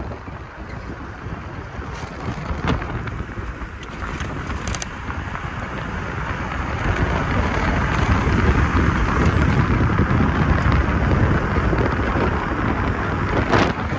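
A car driving on a road, with steady road and wind noise that grows louder about seven seconds in.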